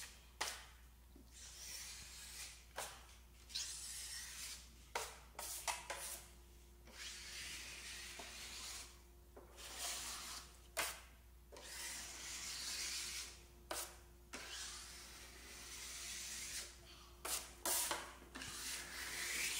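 Steel drywall knife scraping along a paper-faced metal corner bead, pressed hard to squeeze excess joint compound out from under it. It makes a series of long scraping strokes with short pauses and a few light clicks between them.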